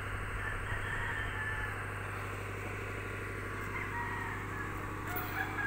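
A steady low motor hum, with birds and chickens calling over it.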